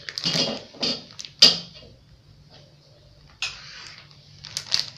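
Handling noises: three short clattering, scraping sounds in the first second and a half, then a brief rustle and a few light clicks near the end.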